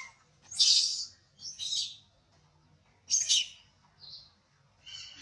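Baby long-tailed macaque crying in short, shrill screeches, four cries about a second apart, the last one faint.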